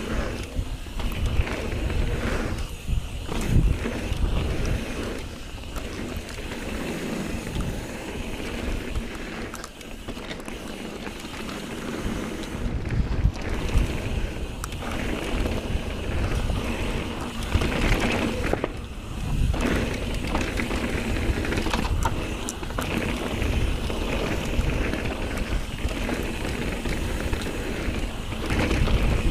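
Mountain bike ridden fast down a dirt and gravel trail: a steady rush of tyres rolling and crunching over dirt, with the bike rattling and clicking over bumps and wind buffeting the camera microphone.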